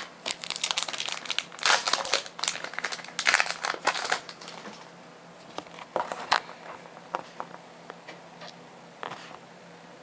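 Foil booster-pack wrapper crinkling and tearing open for the first four seconds or so, then a few light rustles and clicks of trading cards being handled.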